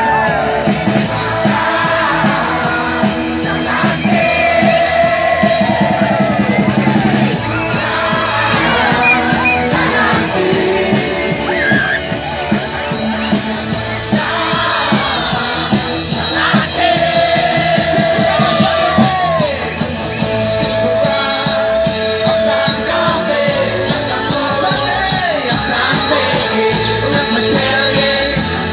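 Loud amplified live band music with a steady beat and singing over a PA, with a big crowd singing and shouting along.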